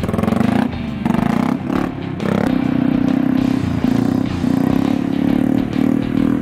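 Small motorcycle engine revving hard and held at high revs while the bike is ridden on its back wheel in a wheelie. The pitch dips briefly a couple of times early on as the throttle is eased, then runs mostly steady with short dips.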